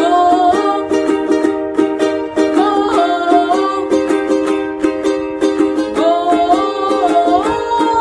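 A boy singing a Hindi patriotic song while strumming chords on a ukulele, his voice holding long notes that slide up in pitch.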